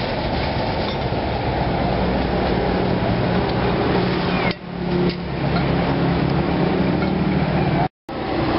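Steady roadside traffic noise with a low engine hum. It dips briefly about halfway and cuts out for a moment near the end.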